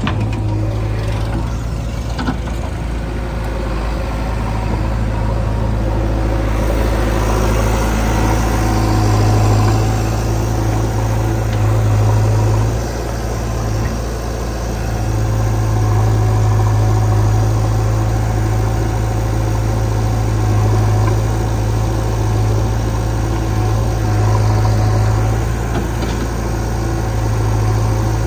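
Diesel engines of a JCB 3DX backhoe loader and a Sonalika tractor running steadily, a loud low hum that swells and eases slightly now and then.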